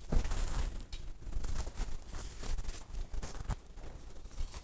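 Quiet kitchen sounds with a few soft knocks and scrapes, as a spoon begins stirring in a stainless steel saucepan near the end.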